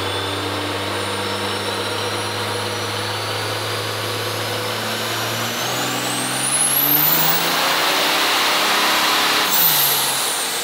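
Built 5.9 L Cummins common-rail diesel in a Dodge Ram running on a chassis dyno. It holds a steady note, then about halfway through it climbs in pitch and gets louder in a pull. A high whistle from the compound turbochargers rises with it and falls off again near the end.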